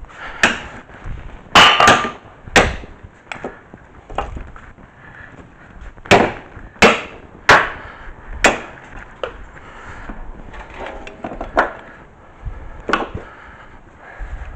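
Sharp metal knocks and clanks from work on the truck's front brake and hub, about ten at irregular intervals. The loudest come in a cluster about two seconds in, one with a brief metallic ring.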